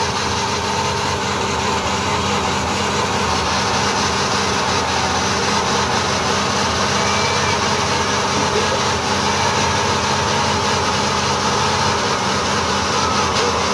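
A van doing a stationary burnout: the engine is held at high revs while the rear tyre spins on the pavement, making a loud, steady, unbroken noise.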